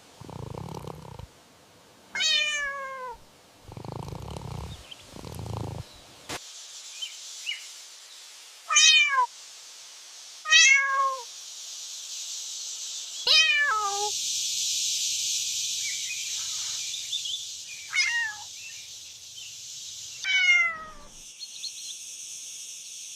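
A cat meowing six times, each meow falling in pitch, with a steady hiss underneath from about six seconds in.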